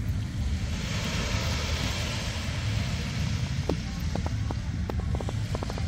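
Small waves washing in on a sandy beach, with wind rumbling on the microphone. The wash swells about a second in and eases off, and a run of short, light ticks comes in the second half.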